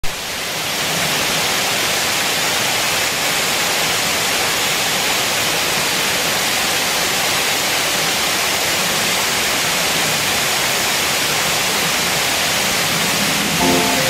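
Water from limestone waterfall cascades pouring into a pool: a steady, hissing rush. Background music comes in near the end.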